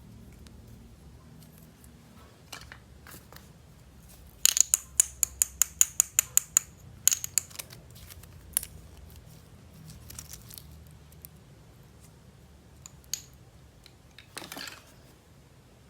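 Hands handling toy pieces and packaging: a quick, even run of about a dozen sharp clicks, then a few scattered clicks and a short scraping rustle near the end.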